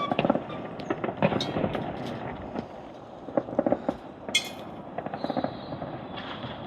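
Fireworks popping and crackling in irregular clusters, with one sharp crack a little past the middle.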